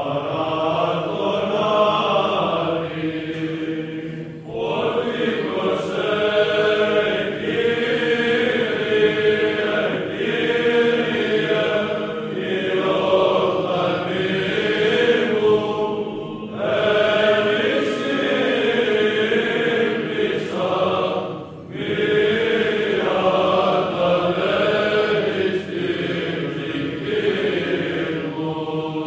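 Orthodox church chant: voices singing long, slow phrases, with a few short breaks between them.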